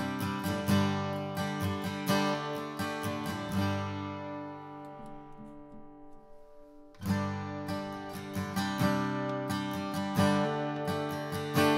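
Gibson J-45 Vintage acoustic guitar strummed with a pick, basic open chords. About three and a half seconds in the strumming stops and a chord rings out and fades, then the strumming starts again at about seven seconds.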